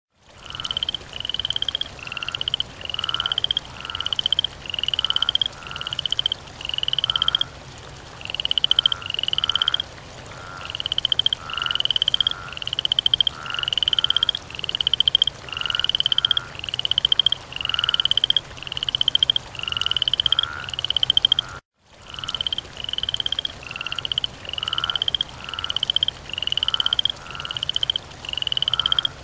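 Frog calling over and over in short, pulsed croaks that rise slightly in pitch, about three calls every two seconds. There is a short pause a little before a third of the way in and a brief dropout about three-quarters of the way through.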